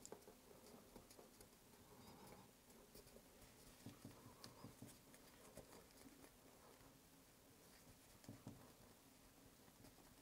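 Near silence with faint, scattered soft taps and rubbing as fingers press and pinch soft blue paste into waves on a wooden board, a few slightly louder taps about four seconds in and again near the end.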